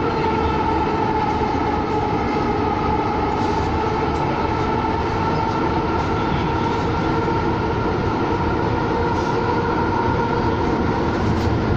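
Siemens-Duewag U2 light rail car heard from inside the passenger cabin while running at steady speed: a steady rumble and hum of the car and its running gear, with steady high tones that neither rise nor fall.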